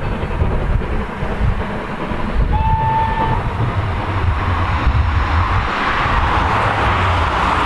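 Steam locomotive working a passenger train, its exhaust a steady low rumble. About two and a half seconds in, it gives one short single-note whistle lasting under a second.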